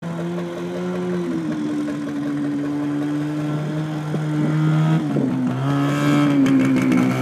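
Engine of an Attex 6x6 amphibious ATV running as it drives over dirt, holding a steady note that steps down in pitch about a second in and again about five seconds in. A few clicks near the end.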